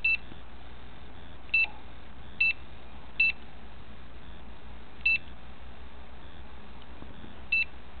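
Handheld electrosmog RF meter giving six short, high electronic beeps at uneven intervals as its buttons are pressed to step through settings.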